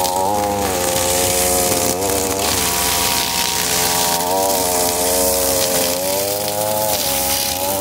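Two-stroke Echo string trimmer running at cutting speed while its line cuts long grass, the engine pitch dipping and recovering several times.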